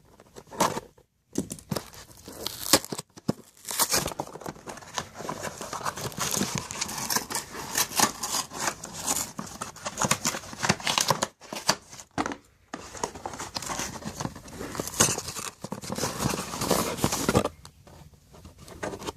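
Mailed watch packaging being torn open and crumpled by hand: a dense run of crinkling and ripping with many sharp clicks, broken by a few short pauses and stopping near the end.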